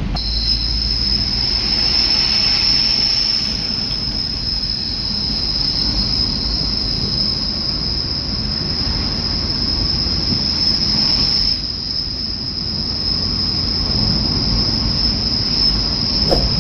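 Road and engine noise inside a moving car's cabin, overlaid by a steady high-pitched whine that starts suddenly and holds without change.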